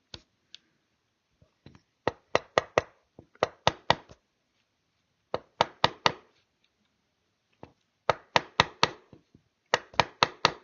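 A wood chisel being tapped into a rifle stock with a mallet, cutting in along a line. The taps come in quick runs of four to six, five runs in all with short pauses between them.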